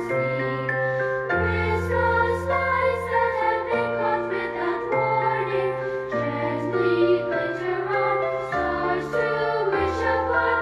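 Recorded Christmas song playing, with choir-like singing over a steady instrumental accompaniment and changing bass notes.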